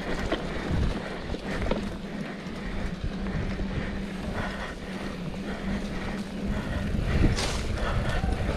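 Mountain bike riding a dirt trail: wind buffeting the microphone over tyre rumble. It grows louder about six and a half seconds in, with a few sharp knocks near the end.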